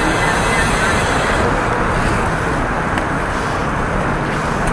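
Steady road noise heard while cycling through city traffic: a dense rumble and hiss of wind on the microphone and passing cars, with the high hiss dropping a little about a second and a half in.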